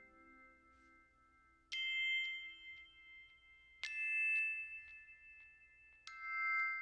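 Background music: three ringing bell-like notes struck about two seconds apart, each left to ring out. The last of a plucked-string tune fades away at the start.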